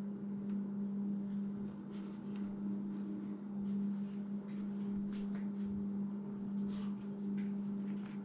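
A steady low hum on one unchanging pitch, with faint light ticks and handling noises here and there.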